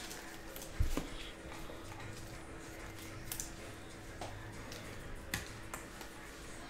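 Faint handling of trading cards and a clear plastic card sleeve: a few light taps and clicks, the loudest about a second in, over a steady faint hum.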